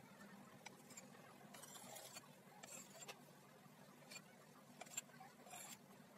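Faint clinks and soft swishes of a metal slotted spoon moving through broth and touching a clay pot, a few light taps scattered through, over a low steady hum.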